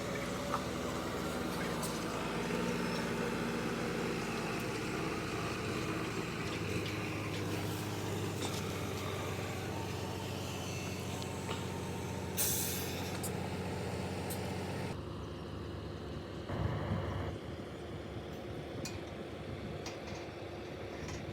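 Concrete mixer truck's diesel engine running steadily, with a short burst of compressed-air hiss about twelve seconds in; the engine note then drops away about fifteen seconds in.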